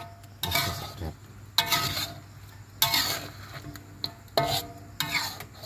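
A pot of eel simmering in coconut milk being stirred and scraped with a utensil: five short scraping strokes, each with a brief ring from the pan.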